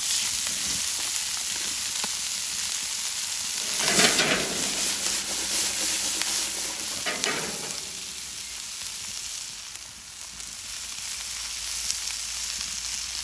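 Onions, carrots, celery and bacon sizzling as they brown in a hot black steel pan over a fire. There are two louder surges of sizzling, about four and seven seconds in.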